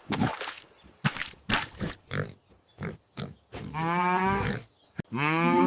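A string of short animal grunts, then a cow mooing twice in long drawn-out calls, the second starting about a second after the first ends.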